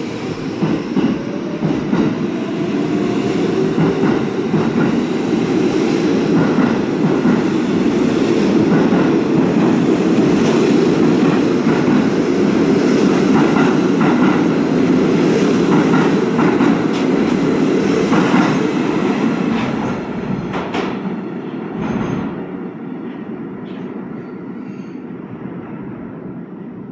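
New York City subway train of R68 cars departing an underground station: a loud, steady rumble of wheels on rail with clicks over the rail joints, building over the first few seconds and fading away over the last several as the train leaves.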